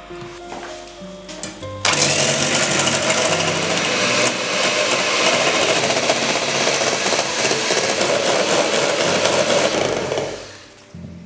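Handheld electric mixer running, its beaters whisking cream in a stainless steel bowl as the cream thickens into whipped cream. It starts suddenly about two seconds in, runs steadily for about eight seconds, and stops near the end. Piano music plays before and after it.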